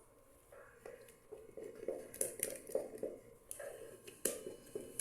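A spoon stirring soft, sticky no-knead bread dough in a bowl: repeated wet squishing strokes, about two or three a second, with light knocks against the bowl.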